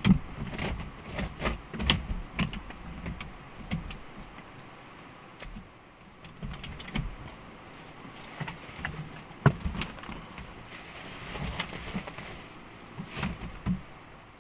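Irregular clicks and knocks with some low thuds, like things being handled and set down, over a faint steady hiss.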